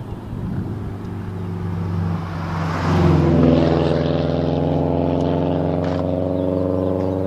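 Motor vehicle traffic passing on the road: a car goes by with a swell of tyre noise about three seconds in, over a steady engine hum that holds on afterwards.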